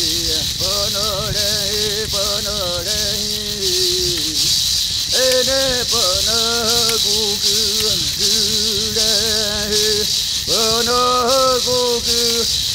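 Indigenous Brazilian ritual chant: voices sing long, wavering phrases over a gourd rattle (maracá) shaken in a steady rhythm.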